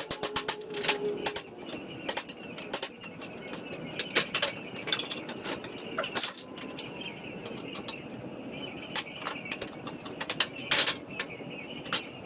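Hand tools working apart a wooden pallet: a quick run of sharp taps and clicks for the first second or so, then scattered knocks of wood and metal.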